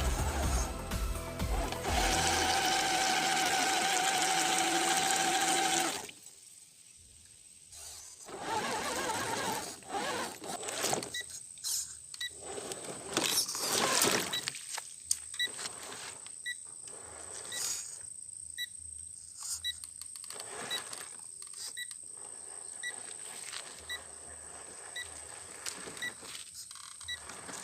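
Music for about six seconds, then cuts off suddenly. After that, a small brushed electric motor and gearbox of a 1/10-scale RC crawler run in short stop-start spurts.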